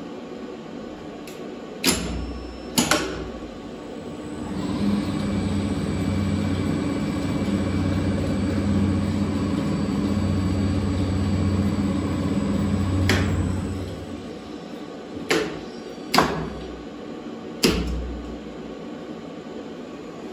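Geared traction lift machine making a run: two sharp clunks, then the electric motor and worm gearbox run with a steady low hum for about ten seconds and wind down. A series of clunks follows as the brake and switchgear operate.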